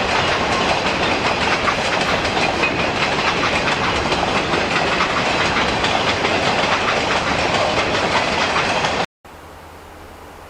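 Freight train cars rolling past at close range, with a loud steady rush of wheels on rail and clacking over the joints. It cuts off abruptly about nine seconds in, leaving a much quieter steady low hum.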